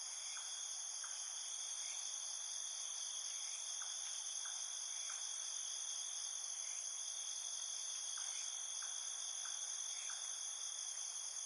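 A steady, continuous high-pitched insect chorus, cricket-like, in several even layers, with faint short chirps scattered through it.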